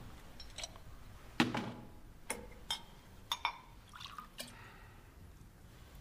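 Glass knocks and clinks of a cut-glass crystal decanter and a tumbler, the loudest a knock about a second and a half in, then a short pour of liquor from the decanter into the glass.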